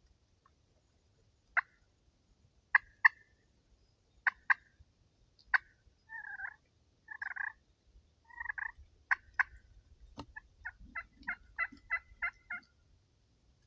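Turkey clucks and yelps: scattered sharp single clucks, a few rougher drawn-out notes, then a steady run of about nine yelps near the end. A sharp click sounds just before the yelp run.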